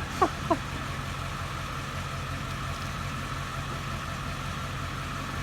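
A vehicle engine runs steadily at idle. Two short falling chirps come in the first half second.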